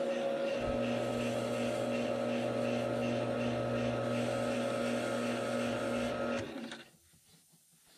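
Grizzly G0462 variable-speed wood lathe running steadily at 540 rpm, turning a foam blank being sanded, with a steady motor whine and a lower hum that joins about half a second in. The sound cuts out about six and a half seconds in.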